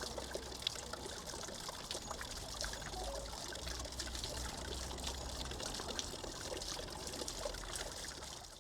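Cherub garden fountain: water pouring and splashing steadily into its basin.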